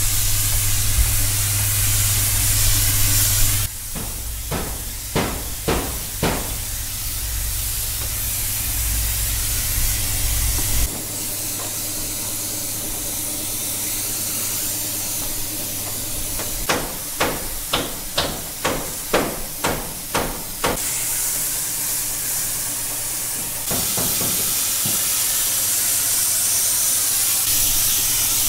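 Hammer blows over a steady hiss: a run of about four strikes, then later a quicker run of about eight. A low hum sits under the hiss in the first part, and the background changes abruptly several times.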